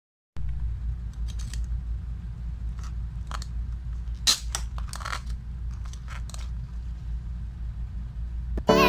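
A pot of crabs boiling in milk gives a steady low bubbling rumble. Scattered clicks and scrapes come from metal tongs against the crab shells and the pot, the sharpest about four seconds in.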